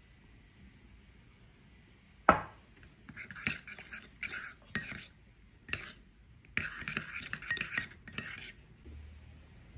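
A metal spoon stirring and scraping around a ceramic bowl, mixing dried basil into the liquid, with one sharp clink about two seconds in and then several bursts of clinking and scraping that stop shortly before the end.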